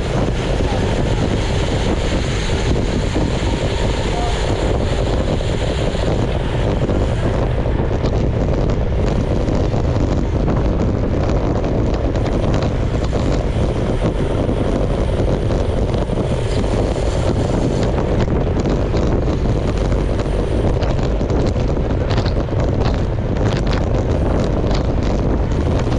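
Steady wind rush buffeting a bike-mounted camera's microphone while riding at speed in a pack of road cyclists. Scattered light clicks come through in the second half.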